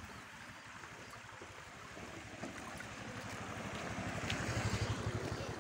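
Wind buffeting the microphone, a low fluttering rumble that swells and grows louder over the last couple of seconds, over a steady outdoor rushing noise.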